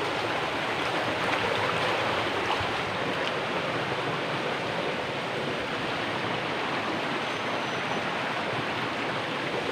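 Stream water rushing over rocks, a steady noise.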